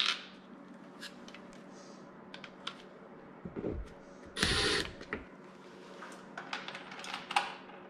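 Cordless drill driving a screw through a plastic rod rack into a wall anchor in one short burst, about a second long, roughly halfway through. Scattered light clicks and knocks of the rack and screws being handled come before and after it.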